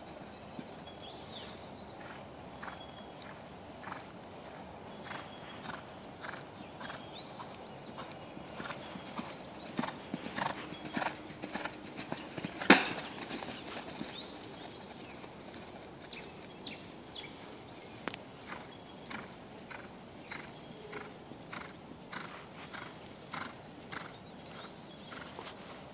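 A black Quarter Horse–Thoroughbred cross gelding cantering on a dirt arena: regular hoofbeats about two a second, with one much louder thud about halfway through.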